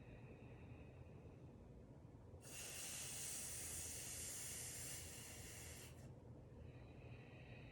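Sitali cooling breath: a long hissing inhale drawn in through the curled tongue, lasting about three and a half seconds, then a softer exhale through the nose that begins near the end.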